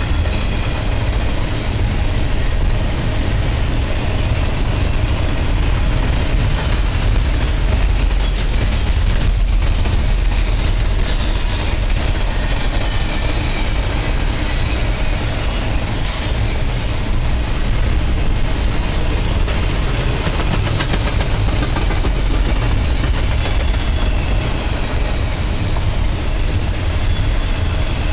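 Double-stack intermodal freight cars rolling past at speed: steel wheels running on the rails, a steady loud noise heaviest in the low end.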